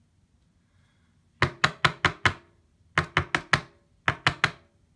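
Knocking on a hard surface in three quick runs: five knocks, then four, then three, about five a second.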